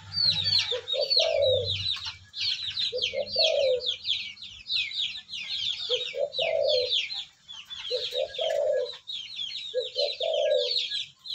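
Caged dove cooing: five short phrases of low, soft notes, each a quick run of two or three coos, about every two seconds. Many small birds chirp rapidly and high-pitched throughout.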